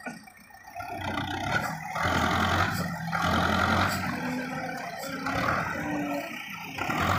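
Belarus 510 tractor's diesel engine working hard under heavy load, its rear wheels dug into sand as it pulls a loaded trolley. The engine gets louder about a second in and stays loud.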